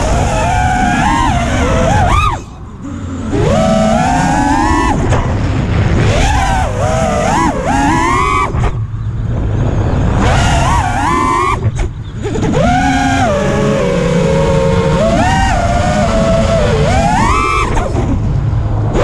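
Racing-drone motor whine from a 5-inch FPV quad's T-Motor Velox V2 2306 brushless motors and props. The pitch constantly rises and falls with the throttle through flips and dives, over a low rumble of wind and propwash on the onboard microphone. It drops away briefly three times as the throttle is chopped.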